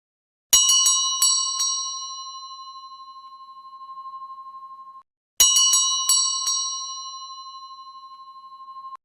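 Doorbell: a metal bell struck about five times in quick succession, then ringing on with a wavering tone as it fades, cut off abruptly. The same ring plays twice.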